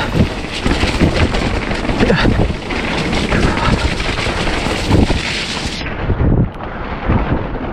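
Mountain bike riding down a rough, wet, rocky trail: a dense, irregular clatter of tyres, chain and frame rattling over rocks.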